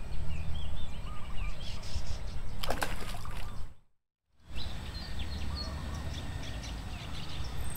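Small birds chirping over a steady low rumble, with a brief clatter a little under three seconds in. The sound drops out completely for about half a second just before the four-second mark.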